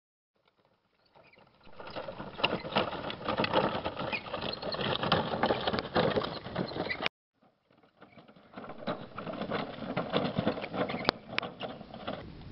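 Two-wheeled wooden handcart rolling over crushed-stone gravel: a dense crackling, rattling crunch of wheels grinding over loose stones. It breaks off suddenly a little after seven seconds, starts again about a second later, and there is one sharp knock near the end.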